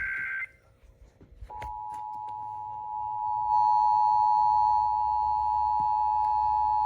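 The tail of an EAS SAME header, a short burst of digital data tones, cuts off half a second in. About a second and a half in, the Emergency Alert System attention signal starts: a steady two-tone alert (853 and 960 Hz) that gets louder about three and a half seconds in.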